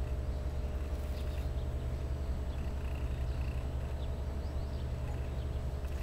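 Steady low rumble of background noise with a faint hum.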